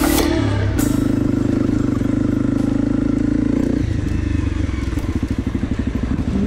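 Honda CRF250 motorcycle's single-cylinder engine running at steady revs, then dropping to a pulsing idle about four seconds in as the bike pulls up and stops.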